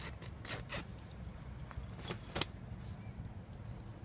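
Sharp clicks and light rattles of small fishing tackle being handled, four or so in all, the loudest about two and a half seconds in, over a steady low rumble.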